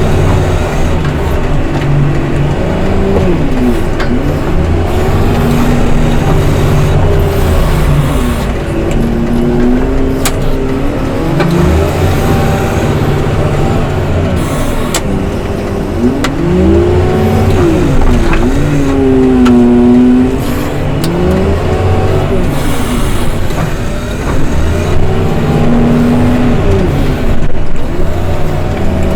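Engine of a snow-clearing machine revving up and dropping back over and over, its pitch rising and falling every few seconds over a steady low rumble.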